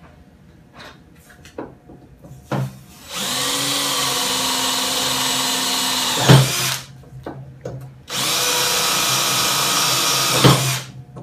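Cordless drill boring holes through a metal frame and its gusset: two runs of a steady whine, one about three and a half seconds and one about two and a half seconds long, each with a brief louder spike near its end. Light clicks of handling come before the first run.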